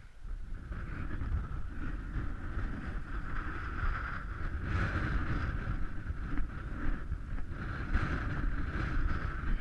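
Wind buffeting a GoPro's microphone: a steady, noisy rumble with no distinct events.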